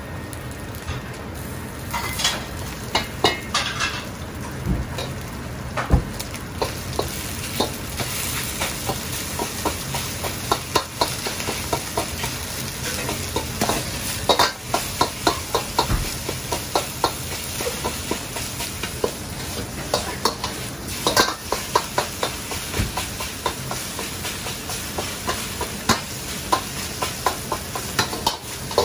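Metal ladle clanking and scraping against a carbon-steel wok in repeated irregular strokes as egg fried rice is stirred and pressed, over a steady hiss of frying on a high gas flame.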